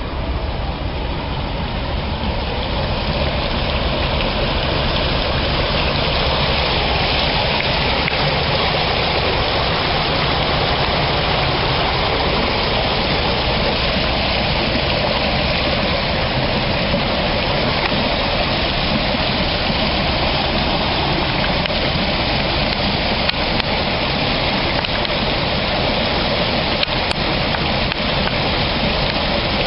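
Construction-site discharge water gushing out steadily: a continuous rushing noise with a low rumble underneath.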